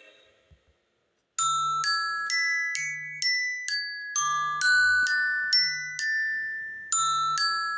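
iPhone XR ringtone: a bright, bell-like mallet melody of quick single notes, about two a second, starting about a second and a half in. The short phrase loops, beginning again near the end.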